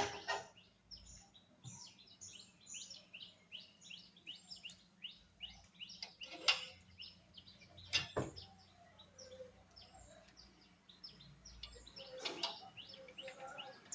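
Many small birds chirping in quick, short, falling notes. Four sharp knocks or clicks break in now and then and are the loudest sounds.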